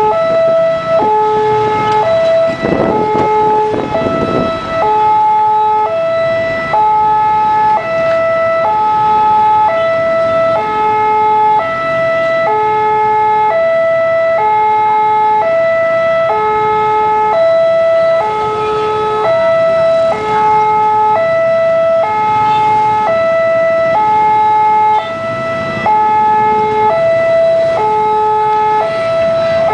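Electronic warning alarm of a railway level crossing, alternating a high tone and a low tone about once a second without a break. It sounds while the barriers are down, warning of an approaching train.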